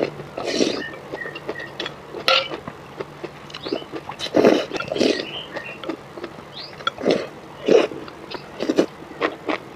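Close-miked eating noises of spicy noodles: irregular wet chewing, slurps and lip smacks, coming in short bursts every half second to second.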